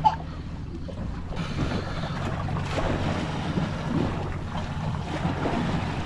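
Wind buffeting the microphone and sea water washing around a small fishing boat, over a steady low hum.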